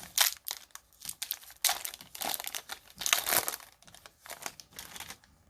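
Foil booster-pack wrapper crinkling and tearing as it is opened by hand, in a string of irregular crackly bursts, loudest about three seconds in and dying away near the end.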